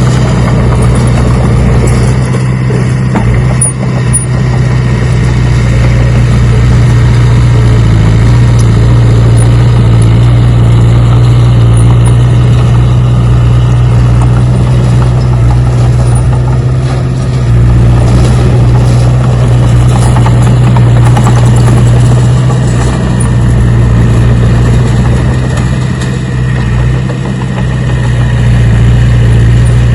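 An engine-like machine sound running steadily throughout, with a strong constant low hum under a broad rushing noise and small dips in loudness about 4 s and 27 s in.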